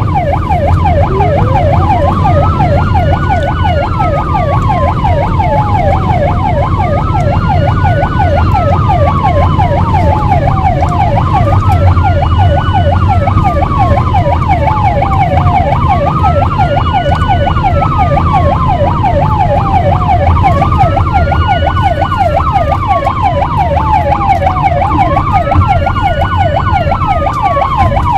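Ambulance sirens sounding: a rapid yelp overlaps a slower wail that rises quickly and then falls off, repeating about every four and a half seconds, over a low vehicle rumble.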